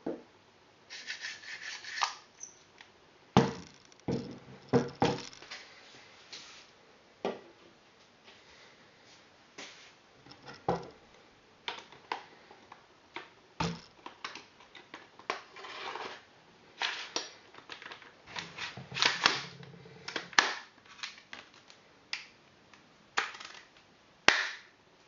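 Small parts of a gas-blowback airsoft rifle being handled. There are irregular sharp clicks and knocks, with short scraping and rubbing noises in between.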